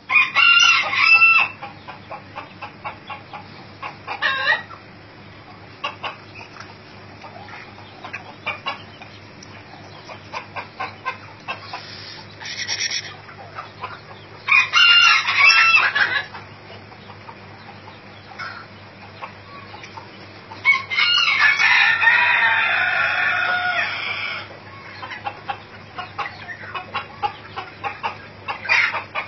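Ornamental chickens in a pen: roosters crowing several times, the longest crow about three-quarters of the way through, with hens clucking between the crows.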